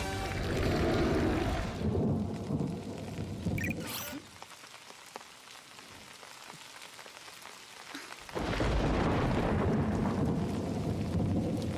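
Heavy rain with rumbling thunder, a cartoon storm soundtrack. The storm drops much quieter for a few seconds in the middle, then a loud crash of thunder breaks in about eight seconds in and heavy rain carries on.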